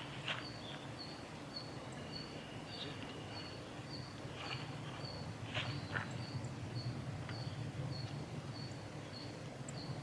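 Outdoor ambience: a steady low hum, a thin high note repeating about twice a second, and a few short dry rustles, as of a small bird moving through dead grass and leaf litter.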